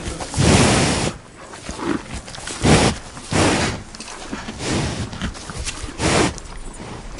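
A cow breathing out hard through its nostrils in a series of noisy puffs. The first puff lasts about a second, and shorter ones follow every second or so.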